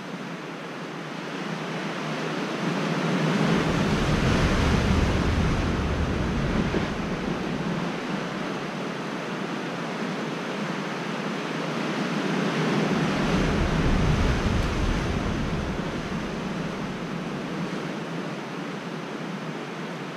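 Sea surf surging against the rocks, swelling and easing twice about ten seconds apart, with wind rumbling on the microphone at each swell.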